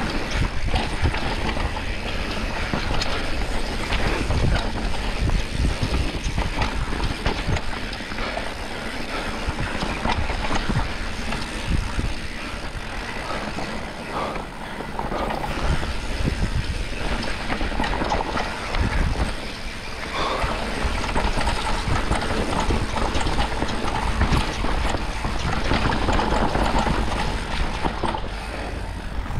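Mountain bike descending a bumpy dirt singletrack: tyres rolling on dirt, with the bike rattling and knocking over roots and bumps and wind buffeting the camera's microphone.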